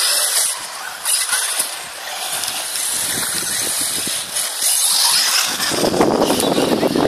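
Electric 1/8-scale RC buggy driving and jumping the ramps, with a steady high hiss. A louder, fuller rush of noise comes in near the end.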